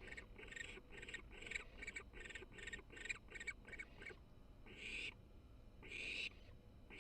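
Barn owl chick purring: a fast run of short raspy notes, about three or four a second, then two longer drawn-out raspy calls in the last few seconds.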